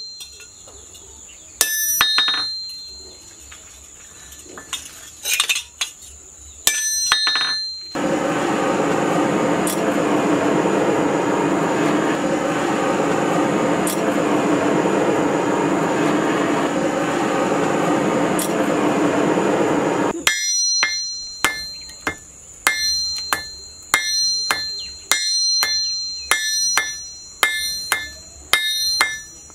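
Hammer blows on a steel anvil while forging a spring-steel knife blade: first a few ringing strikes on a handled cutting chisel, then a steady rushing noise from the forge fire lasting about twelve seconds, then a quick run of ringing hammer blows, about two a second, on the red-hot blade.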